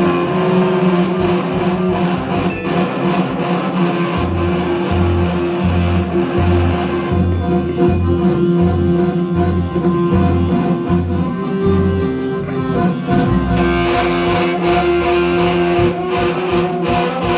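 Live band playing a rock song: electric guitar over a pulsing bass line and drums, the cymbals growing brighter near the end.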